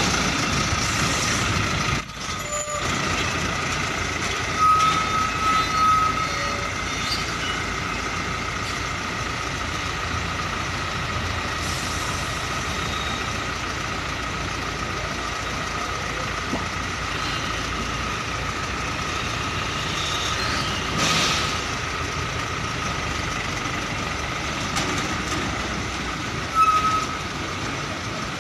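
Heavy diesel tractor-trailer engines running as the trucks manoeuvre slowly, over a steady high-pitched whine. About two-thirds of the way through comes a brief hiss like an air-brake release.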